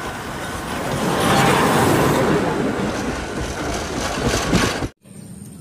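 A steam locomotive and passenger coaches passing close by on the track, a steady rumbling noise of wheels and carriages that swells about a second in, fades slowly and then cuts off suddenly near the end.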